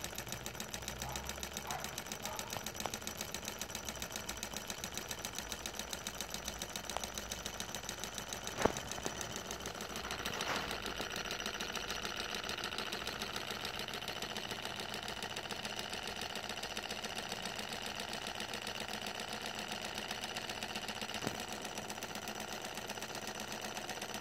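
Two Phoenix Solar 1 model Stirling hot-air engines running side by side on their spirit burners, making a fast, even mechanical ticking. A single sharp knock sounds about a third of the way in.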